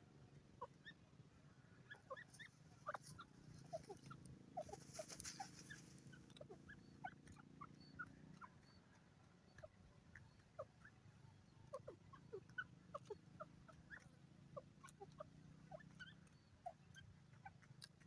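Grey francolin giving soft, short peeping notes, scattered irregularly a few per second, over a faint low hum. A brief hiss comes about five seconds in.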